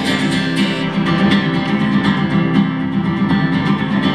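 Acoustic guitar strummed in a steady rhythm, played live as part of a small band.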